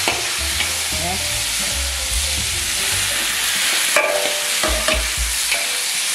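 Potato chunks and chicken pieces sizzling in a hot pan as they are stirred and turned with a spatula, with a steady hiss and occasional knocks of the spatula against the pan, one louder about four seconds in.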